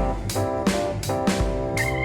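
Background music: plucked, guitar-like notes over a steady drum beat, with a new note or chord struck about every two-thirds of a second.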